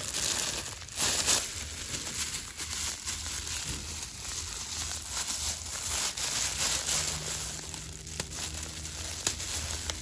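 Gloved hands handling and rubbing dried shrimp: the thin plastic gloves crinkle while the brittle dried shrimp rustle and click, with many small scattered crackles.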